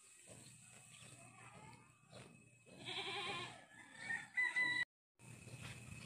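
Rooster crowing: a wavering call about three seconds in, then a louder high note that breaks off abruptly.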